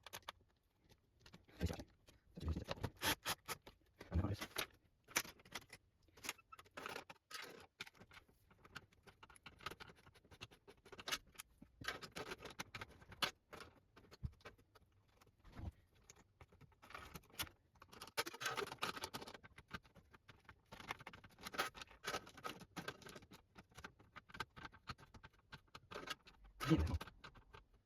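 Irregular clicks, taps and scrapes of a screwdriver working on screws and of the metal and plastic parts of a Samsung Sky+HD box being handled while its hard drive is being unscrewed.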